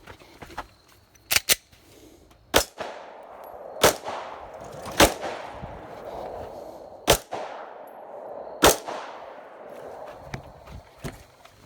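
Glock 19 9mm pistol shots fired at an uneven pace: a quick pair about a second in, then five single shots spread over the next seven seconds, each followed by a short echo.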